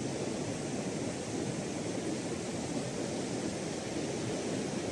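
Steady rush of sea surf breaking on the shore, mixed with wind buffeting the microphone.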